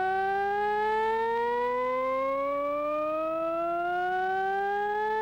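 A single sustained, buzzy tone rich in overtones, gliding slowly and steadily upward in pitch like a siren winding up.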